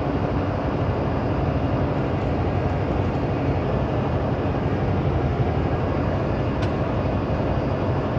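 Steady drone of a semi-truck's engine and tyres, heard from inside the cab while cruising at highway speed.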